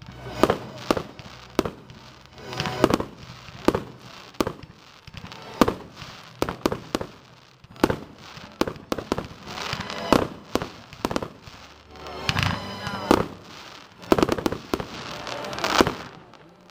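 Aerial firework shells bursting: an irregular string of sharp bangs, at times several a second, each with a short echoing tail.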